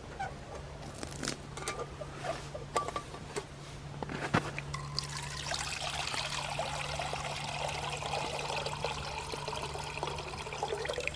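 A few light knocks and a sharp click, then liquid pouring steadily into a container for the last six seconds or so.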